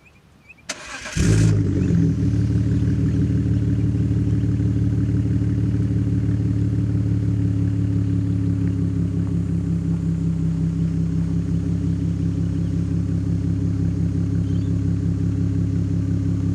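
BMW E46 Touring engine started through a muffler-delete stainless exhaust with twin tips: the starter cranks briefly, the engine catches about a second in with a short flare, then settles into a steady idle.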